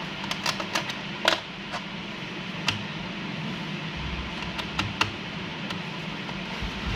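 Irregular light clicks and taps of fingernails and a small tool on the plastic underside of a laptop, over a steady low hum.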